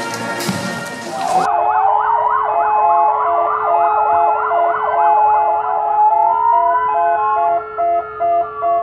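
Brass band music cuts off about a second and a half in. Several sirens then sound together: fast up-and-down yelping over slower rising-and-falling wails, with a steady tone and a pulsing beep underneath.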